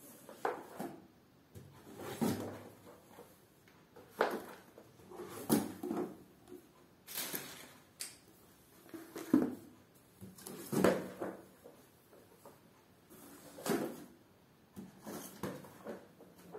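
Paperback study books being handled and laid down one after another on a concrete floor: irregular soft thuds and cover-and-paper rustles, one every second or two.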